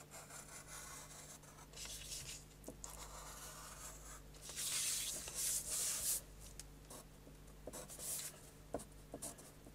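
Graphite pencil scratching across paper in sketching strokes, faint, with the strongest strokes about halfway through and one more near the end.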